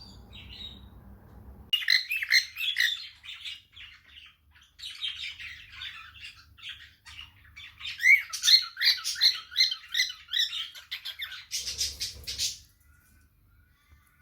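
Small pet parrots chattering: a fast run of varied chirps and warbles, with a harsher, noisier squawk near the end.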